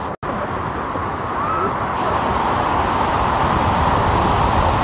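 Water rushing steadily down a reservoir's overflow spillway, growing louder from about two seconds in, with faint voices in the first couple of seconds.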